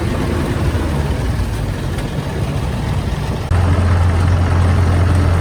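Diesel engine of rice-harvest machinery running steadily with a deep hum; about three and a half seconds in it becomes abruptly louder and steadier.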